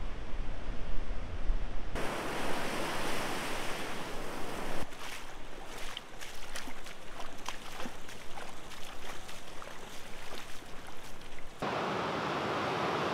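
Ocean surf with water splashing around legs wading through shallow breaking waves, full of sharp clicks and splashes. A low wind rumble opens it, and near the end it turns to a steady, even rush of surf.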